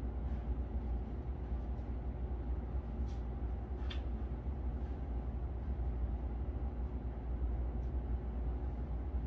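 Steady low rumbling background noise with no distinct source, and a faint click about four seconds in.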